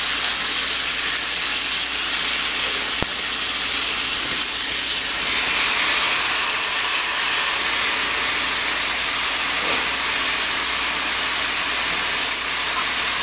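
Ground meat sizzling on the hot plates of a George Foreman electric contact grill, a steady hiss that grows somewhat louder about halfway through. A single light click about three seconds in.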